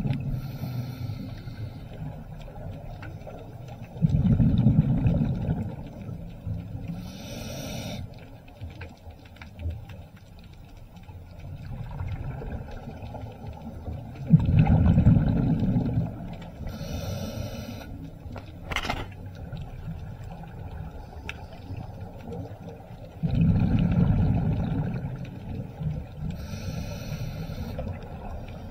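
Scuba diver breathing underwater through a regulator, three breaths about ten seconds apart, each a rumble of exhaled bubbles and a short hiss of inhalation. A single sharp click comes about two-thirds of the way through.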